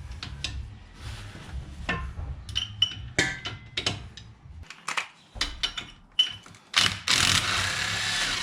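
Hand ratchet and wrench clicking and metal clanking on tight rear differential bolts as they are broken loose, with a louder continuous rasp near the end.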